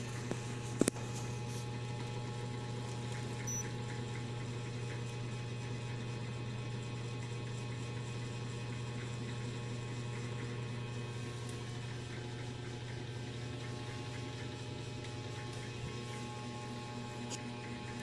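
Steady low electrical hum from inside a homemade refrigerator incubator, with one sharp click about a second in.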